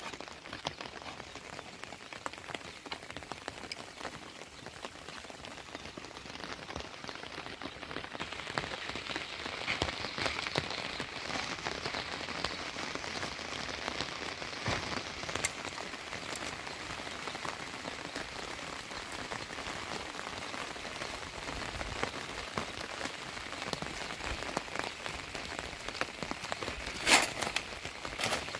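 Steady rain falling on plastic roof sheeting and wet ground, a dense spread of small drop ticks. A single sharp knock stands out near the end.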